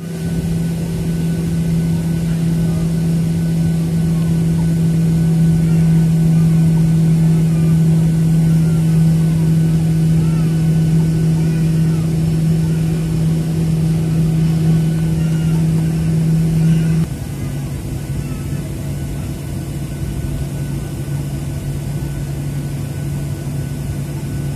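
Steady hum of a jet airliner's cabin on the ground before takeoff, with a low drone and faint voices above it. About two-thirds of the way through, the hum suddenly drops in loudness and slightly in pitch.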